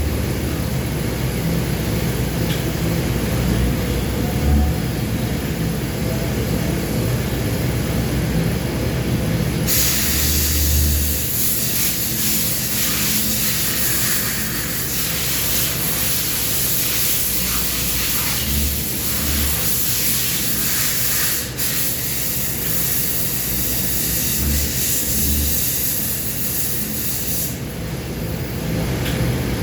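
Steady mechanical rumble, with a loud hiss that comes in about ten seconds in, holds for most of the rest, and cuts off near the end.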